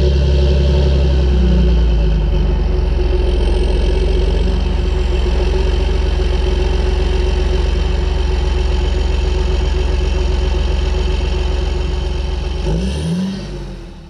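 John Deere 8330's six-cylinder diesel running steadily, heard close up at its exhaust stack; near the end the pitch rises briefly and the sound fades out.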